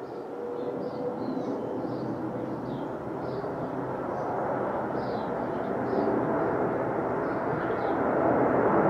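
Twin-engine jet airliner on final approach with its landing gear down: a steady jet rush that grows louder as it nears overhead, with a faint engine whine in it.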